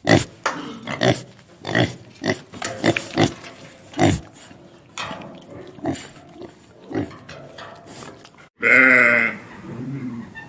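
Farm animal grunting in many short, separate bursts. Near the end, after a brief break, a louder, drawn-out pitched animal call begins.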